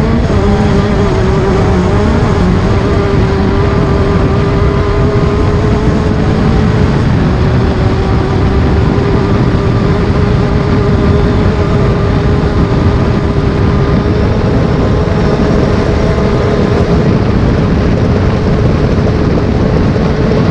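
Class 10 off-road race car's engine held at high revs at a nearly constant pitch, wavering briefly about two seconds in, over a heavy rumble of noise.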